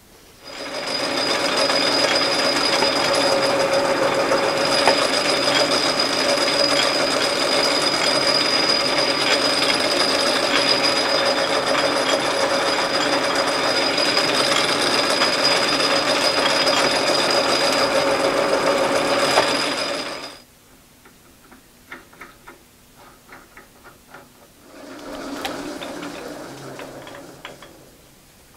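Metal lathe running under power with its chuck spinning a steel workpiece: a steady mechanical whir with a constant high whine. It stops abruptly about twenty seconds in, followed by a few light clicks and a shorter, quieter stretch of mechanical sound near the end.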